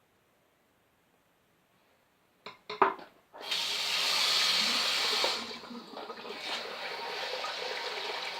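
Near silence, then a few knocks about two and a half seconds in, followed by a water tap running into a sink: a hard, steady rush for about two seconds, then a lower, uneven splashing.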